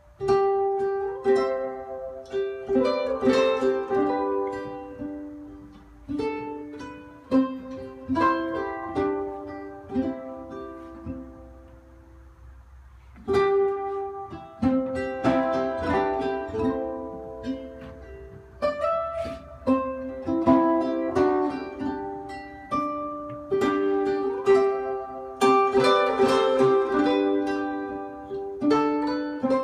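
Instrumental music led by a plucked string instrument, played back through a Dynaco ST-70 tube amplifier and Dynaco A25 loudspeakers. The notes ring and die away; about ten seconds in the playing thins out, and it comes back in full about three seconds later.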